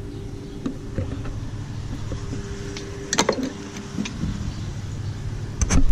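Plastic car intake parts being handled, giving a few sharp clicks and knocks, the loudest about three seconds in and a cluster near the end, over a steady low hum.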